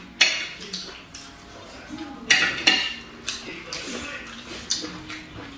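Chopsticks clicking and tapping against porcelain bowls and plates during a meal: a scattered string of sharp clinks, the loudest pair a little over two seconds in.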